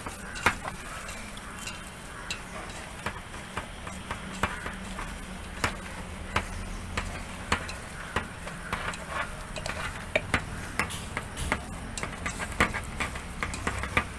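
A spoon or similar utensil stirring, scraping and knocking against a pot as raw chicken is mixed with spice powders and salt, with irregular clicks about once or twice a second.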